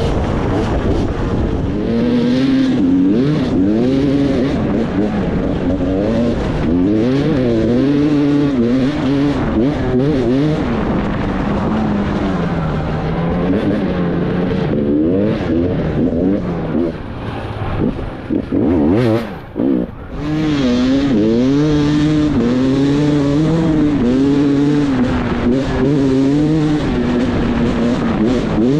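Enduro dirt-bike engine heard from the rider's helmet, revving up and falling back over and over as the bike accelerates, shifts and slows along a trail. About two-thirds of the way through, the engine note drops away briefly, with a few sharp knocks, then picks up again.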